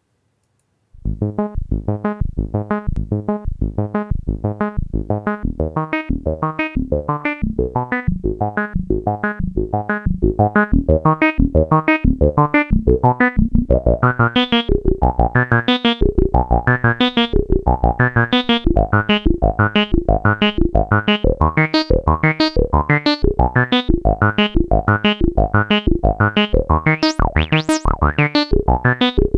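Outro music with a steady pulsing beat and keyboard chords, starting about a second in and growing louder and fuller about ten seconds in.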